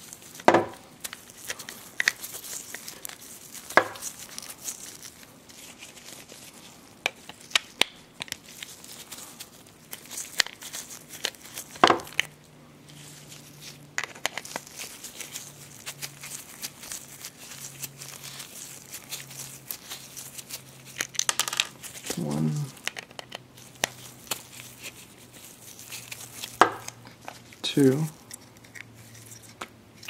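Handling noise from taking apart a plastic steering-column wiper switch with a screwdriver: scattered sharp clicks and taps of plastic parts and the tool against a wooden tabletop, with rustling in between.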